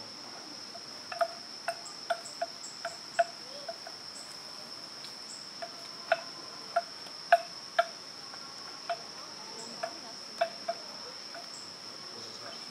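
A steady high-pitched insect drone, with short hollow knocks at irregular intervals over it, some in quick pairs.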